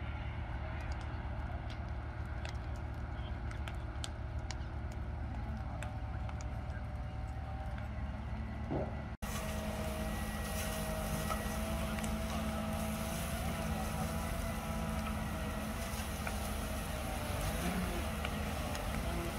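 A heavy diesel engine running steadily, with scattered sharp crackles in the first half. From about halfway through, the hiss of a fire hose's water jet joins it.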